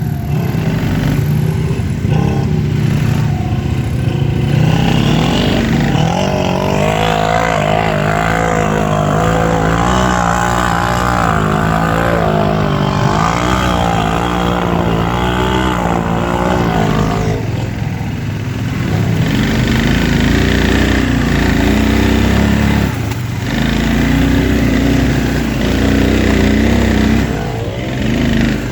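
ATV engine running hard under load while mud bogging, its revs rising and falling in quick waves for about ten seconds mid-way, then dropping to a lower, steadier pitch with brief surges.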